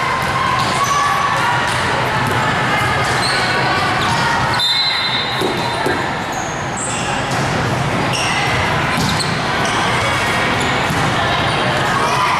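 Echoing volleyball-gym ambience: many voices and crowd chatter in a large hall, with balls bouncing and thudding on the court floor and brief high squeaks.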